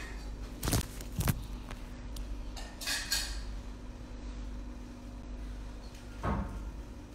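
Two sharp knocks about half a second apart, a short scuffing noise around three seconds in and another knock near the end, over a steady low hum.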